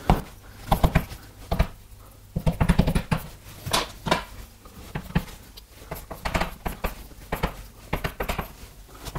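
Handwriting: an irregular string of short taps and scrapes of a writing implement as an equation is written out.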